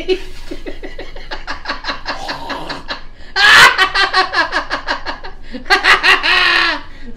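A man and a woman laughing hard together in quick rhythmic pulses, with two louder, high-pitched bursts about three and a half seconds in and again near six seconds.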